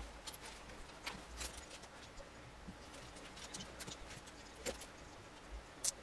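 Plastic Lego pieces clicking and rattling as they are picked through and handled on a wooden table: faint scattered clicks, with a sharper one near the end.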